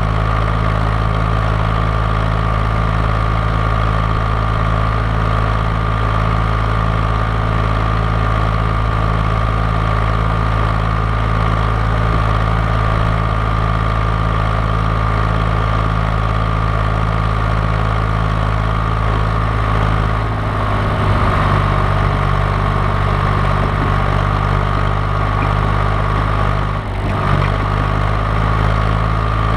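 John Deere 1130 tractor's diesel engine running steadily at a low idle, its note shifting briefly about two-thirds of the way through and dipping for a moment near the end.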